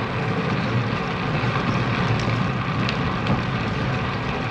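Steady wind rush over an action camera's microphone as a bicycle rides along a paved street, heaviest in the low rumble, with a few light clicks.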